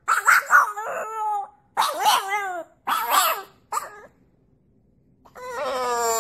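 French bulldog howling: a run of short, wavering yowls, then after a pause of about a second one longer howl that falls in pitch.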